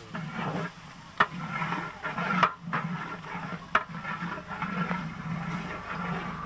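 Raw goat meat sizzling as it goes into hot oil and fried onions in a large aluminium cooking pot, stirred with a long metal ladle that knocks sharply against the pot three times.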